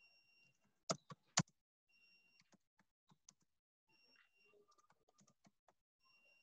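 Faint typing on a computer keyboard: scattered keystrokes, with two louder clicks about a second in.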